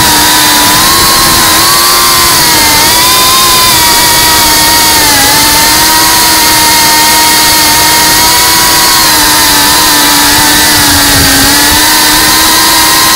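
FPV quadcopter's motors and propellers whining steadily, the pitch dipping and rising a little as the throttle changes, over a steady hiss.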